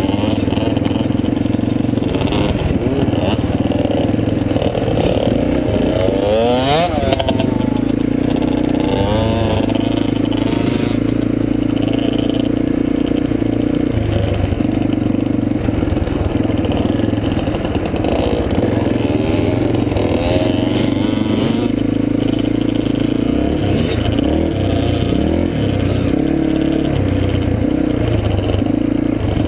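Dirt bike engine running under way as the bike is ridden, heard from on the bike; its pitch rises and falls with the throttle, with a marked sweep about seven seconds in.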